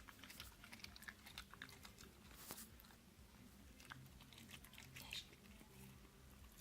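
Faint, irregular crunching and chewing: a West Highland white terrier chewing pieces of cucumber.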